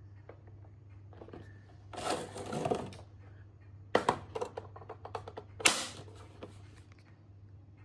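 Mechanical clicks and rattles: a rustling clatter about two seconds in, then a run of sharp clicks from about four seconds in, the loudest near six seconds. A steady low hum runs underneath.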